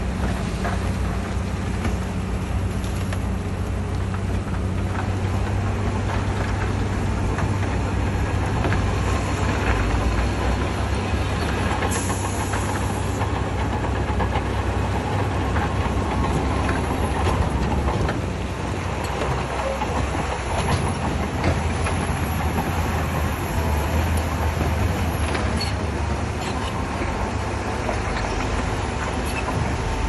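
Bulldozer's diesel engine running steadily with a low drone and a continuous rough clatter.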